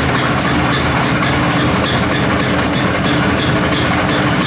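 Vespa PX two-stroke single-cylinder engine idling steadily, with a regular pulse in its hiss.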